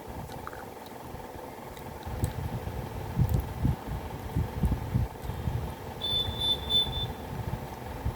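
Close chewing of baked clay pot pieces: irregular low chewing strokes starting about two seconds in, over a steady faint hum. A short high pulsing tone sounds briefly about six seconds in.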